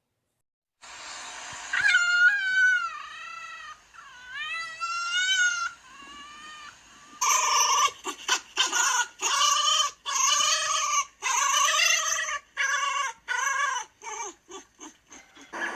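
Fox calls: first a few long, wavering whining cries, then from about seven seconds in a run of quick repeated yelps that get shorter and faster near the end.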